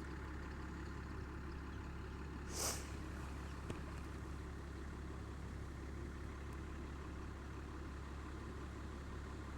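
A steady low rumble of background noise at an even level, with a short hiss about two and a half seconds in and a faint tick a second later.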